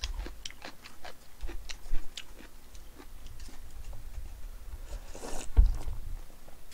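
Close-miked chewing with many small wet clicks, then a short slurp of cold naengmyeon noodles a little after five seconds in.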